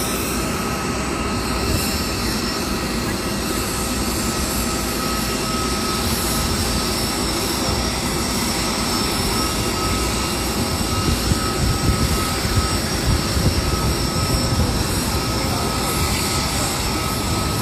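Jet aircraft engine noise: a steady rush with a thin, unchanging high whine over it, swelling a little in the second half.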